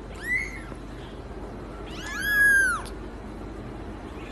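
Small kitten meowing twice in thin, high mews: a short one about a third of a second in, then a longer, drawn-out one at about two seconds.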